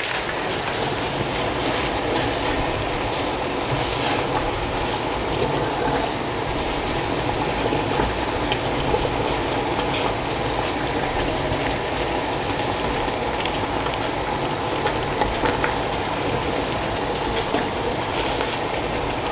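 A saucepan of water at a rolling boil on a gas hob, a steady bubbling, with spaghetti being stirred in.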